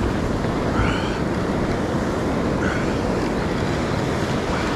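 Surf washing in over the shallows in a steady rush of water, with wind buffeting the microphone.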